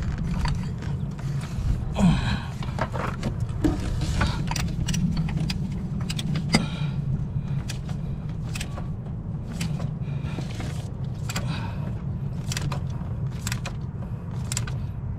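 Socket wrench clicking and clinking on metal as the new oil pressure sensor is tightened, in short irregular clicks over a steady low hum.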